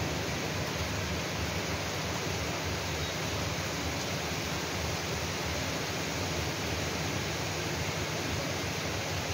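Steady, even hiss of heavy rain falling.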